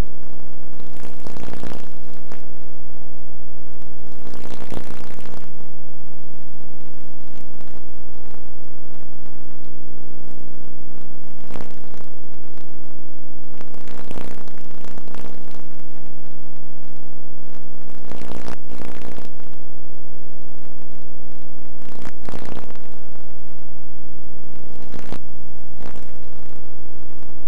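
A loud, steady buzzing hum that does not change, broken by several brief bursts of noise a few seconds apart.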